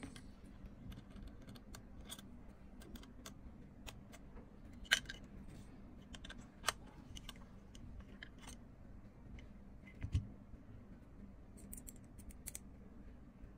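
Small metal parts being handled and fitted together: a steel rod, clamp and brass fitting clicking and scraping against each other in light, scattered ticks. A few sharper clicks come about five and seven seconds in, and a click with a dull knock about ten seconds in.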